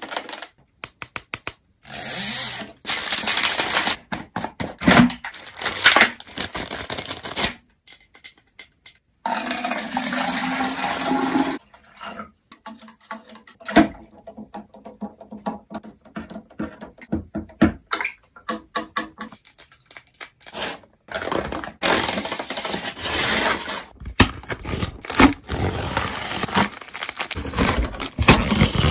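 Handling of a water-reveal doll's plastic packaging: rustling, scraping and clicking, with stretches of water sloshing and pouring as the packaging is soaked to dissolve it.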